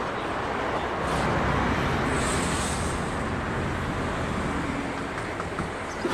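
Steady road traffic noise, a rushing haze that swells a little for a couple of seconds about a second in.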